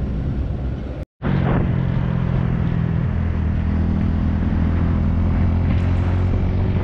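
A vehicle engine running at a steady speed under a steady rushing noise, picking up after a brief cut to silence about a second in.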